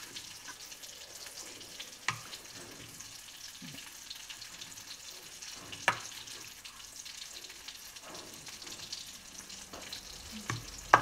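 Thick cauliflower, potato and egg curry sizzling in a non-stick pan as a spatula stirs and scrapes through it. Three sharp knocks of the spatula on the pan, about two seconds in, near the middle and at the end.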